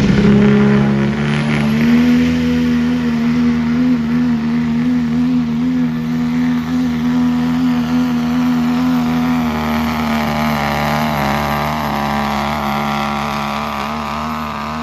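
Diesel pickup truck engine at full throttle under heavy load, pulling a weight-transfer sled, with its engine note held steady. A high thin whistle rises about a second in and then holds.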